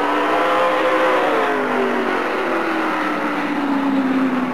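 Dirt-track race cars' engines running at speed around the oval, several engine notes together, the strongest falling steadily in pitch as the cars go by.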